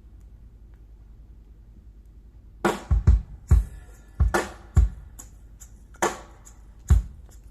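Dali Helicon 300 mk2 loudspeakers playing the drum intro of a recorded song, picked up by a phone's built-in microphone. A faint low hum comes first, then about two and a half seconds in, kick drum and snare hits begin in a steady pattern.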